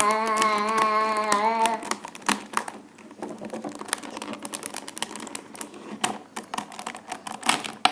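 A child holding one sung note for about the first two seconds. After that, irregular sharp plastic clicks as Rubik's cube pieces are snapped into place and turned.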